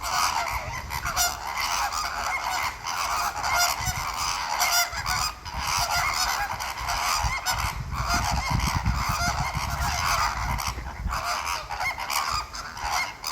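A flock of flamingos honking loudly, many goose-like calls overlapping without a pause.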